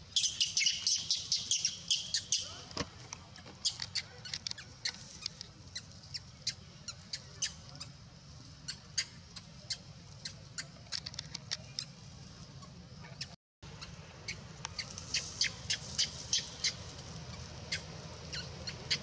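Many short, high-pitched animal chirps or squeaks in quick, irregular succession, thickest in the first two seconds. The sound cuts out briefly partway through, then the chirping picks up again.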